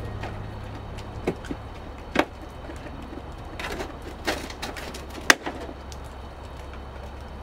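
Six or so short, sharp clicks and snaps, the loudest about five seconds in, as plastic push-pin fasteners are pried out of a truck's inner fender liner, over a steady low rumble.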